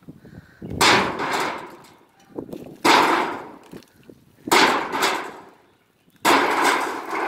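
Heavy blows on an old shed's sheet-tin and wood, four loud crashes about every two seconds, each ringing and dying away over about a second.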